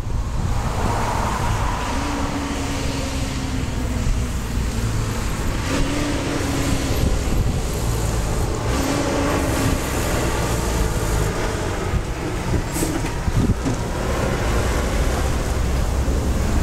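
Road traffic passing on the road at the crossing, a steady car-and-tyre noise, with wind rumbling on the microphone.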